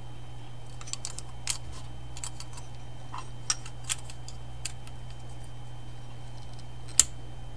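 Small, irregular plastic and metal clicks and taps as parts of a motorcycle brake master cylinder are handled and fitted together by hand, a switch and then the aluminium brake lever going onto its pivot. The clicks come in a cluster over the first few seconds, and the sharpest comes near the end. A steady low hum runs underneath.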